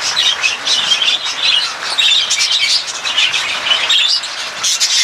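Many budgerigars chattering at once: a continuous, dense twittering of overlapping high chirps and warbles.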